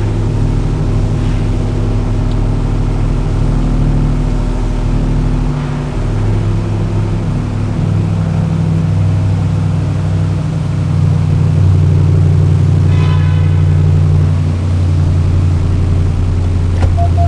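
Supercharged 6.2-litre Hemi V8 of a 2021 Ram 1500 TRX running at idle, a deep steady engine note whose pitch steps up or down a couple of times.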